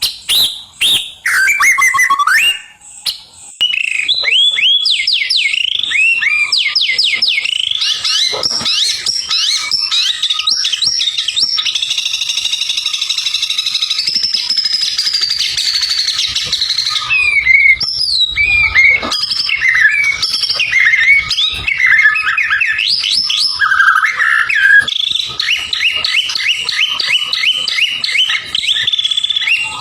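White-rumped shama singing energetically: a rapid, varied run of short whistled notes sweeping up and down, with a long sustained trill about halfway through.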